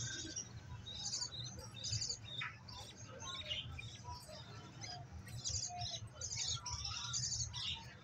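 Budgerigar chicks giving high, rapid begging chirps in short clusters again and again while being hand-fed from a syringe, over a steady low hum.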